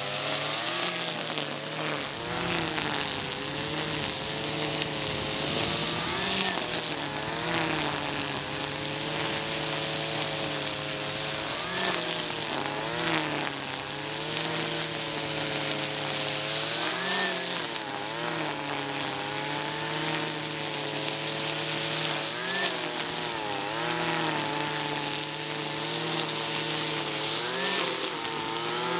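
Husqvarna 323R two-stroke brush cutter running at high revs, mowing tall, dense dandelions and couch grass. Its engine note wavers and briefly picks up every few seconds as the cutting head swings through the growth, over a steady hiss of the cut vegetation.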